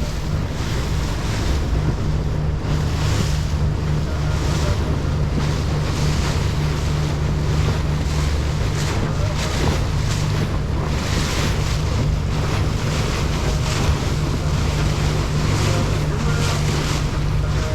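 Wind buffeting the microphone over water rushing and splashing past a moving boat, the splashing swelling and fading every second or so.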